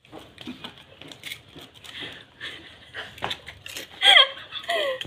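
Faint clicking and rustling of hands cracking and filling fuchka shells, then a woman laughing in two short falling cries near the end.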